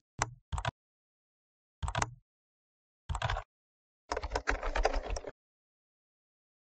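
Keyboard typing keystrokes: a few separate clicks in the first second, short clusters around two and three seconds in, then a fast run of keystrokes from about four seconds to just past five.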